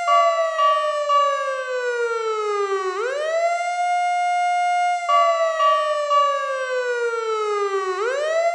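Fire engine siren wailing. Each wail climbs quickly to its top pitch, holds there, then glides slowly down before climbing again, about every five seconds.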